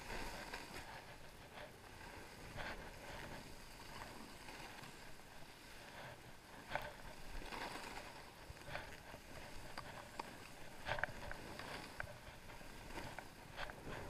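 Skis sliding and carving turns on snow: a steady hiss with a louder swish at each edge change, every second or two.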